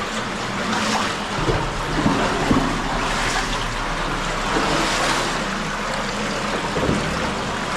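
Water flowing and splashing in a small cave: a steady rushing noise with a few scattered knocks.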